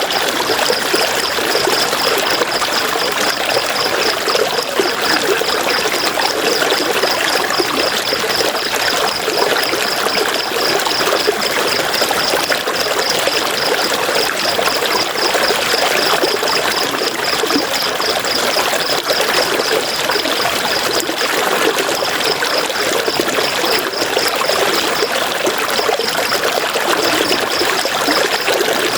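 River water flowing and trickling steadily, with a high, rapid pulsing chirp over it that breaks off a few times near the end.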